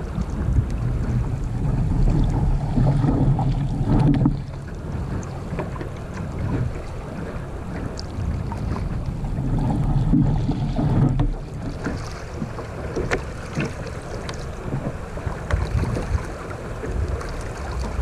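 Wind buffeting the microphone and water rushing and splashing against the hull of a Sunfish sailing dinghy under way. The rumble swells louder twice, about two seconds in and again around ten seconds, with small splashes and clicks throughout.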